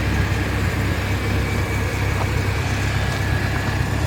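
Car engine running steadily, a low, even rumble with a faint steady whine above it.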